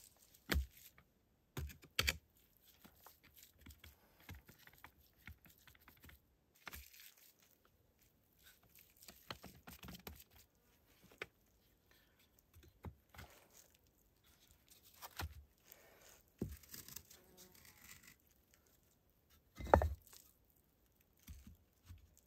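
Scattered knocks, clicks, scrapes and rustles of hands-on building work, irregular and mostly faint, with one heavy thump a little before the end.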